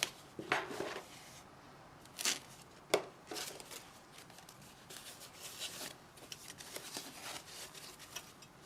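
Plastic model-kit parts and their protective plastic packaging being handled: light rustling and crinkling of the wrapping, with a few sharp clicks of plastic sprue near the start and around two to three seconds in.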